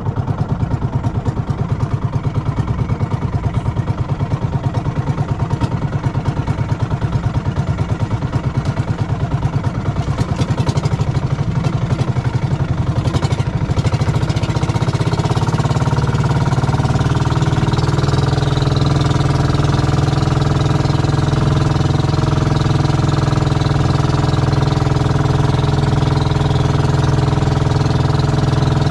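Small engine of a bangka outrigger boat running under way with a rapid, even beat. It picks up speed about halfway through, then runs steadily.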